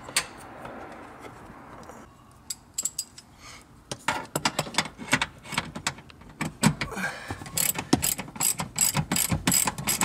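Socket ratchet wrench clicking in quick runs as the seat belt's 19 mm anchor bolt is tightened. The clicking starts sparse a couple of seconds in and gets denser about halfway through.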